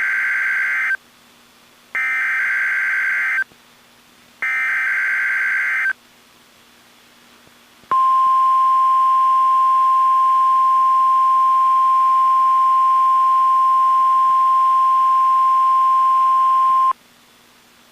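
NOAA Weather Radio Emergency Alert System test signal, fed straight from the weather radio receiver. First come three short buzzy SAME header data bursts about a second apart, the encoded alert that tells receivers which area and event are meant. A couple of seconds later the steady 1050 Hz warning alarm tone sounds for about nine seconds and cuts off abruptly.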